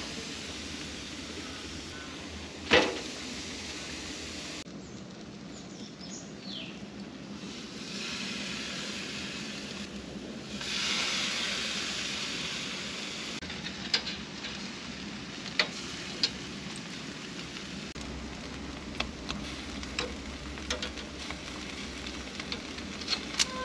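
Beef burger patties and streaky bacon sizzling on a braai grid over hot coals. A single knock comes about three seconds in, and scattered sharp clicks follow in the second half.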